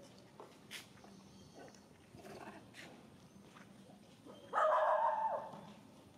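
Macaque monkey giving one loud, harsh scream about a second long, starting suddenly near the end, over faint scattered clicks.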